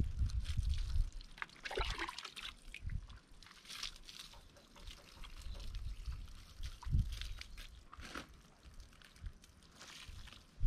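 Water pouring and splashing over a dog's wet coat during a bath, in irregular splashes with a few low thumps.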